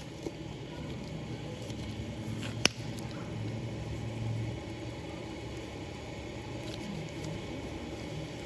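Steady room noise with a low hum, broken by one sharp click a little under three seconds in.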